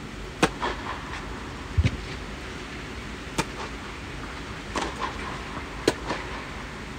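Tennis rackets striking the ball in a rally, starting with a flat serve: five sharp pops roughly every one to one and a half seconds, each with a short echo in the domed hall, over a steady low hum.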